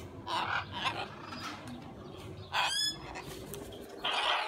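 Parrots giving short, harsh squawks, with one rising call about two and a half seconds in.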